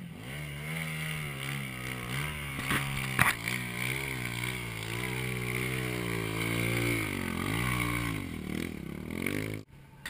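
Enduro motorcycle engine revving up and down as the bike climbs a steep rocky slope, the pitch wavering with each throttle change. Two sharp knocks about three seconds in; the sound cuts off suddenly near the end.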